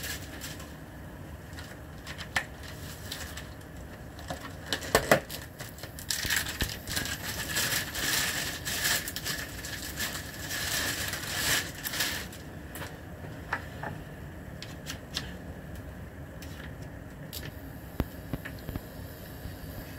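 Egg-coated bread sandwich frying in a stainless steel pan: a steady sizzle and crackle that grows louder for several seconds in the middle. A few sharp clicks come around five seconds in.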